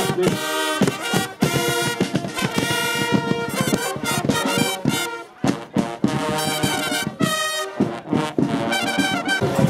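Carnival brass band (Guggenmusik) playing: trumpets and sousaphone blaring loud, short, punchy chords with brief breaks between phrases.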